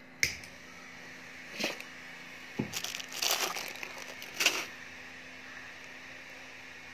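A few sharp clicks and a short run of quick small clinks as metal tweezers and a beaded earring are handled, the first click the loudest, over a faint steady hum.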